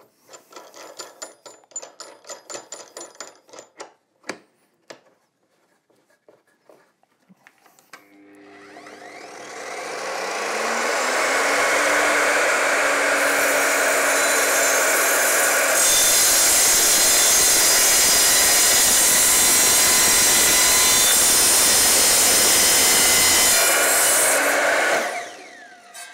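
A few quick clicks as a hold-down clamp is tightened, then the Evolution R255SMS sliding mitre saw's motor starts with a rising whine and runs up to speed. Partway through, the saw gets louder as its blade cuts steadily through a wooden block with steel screws in it, going through the screws without a hitch, and the motor stops near the end.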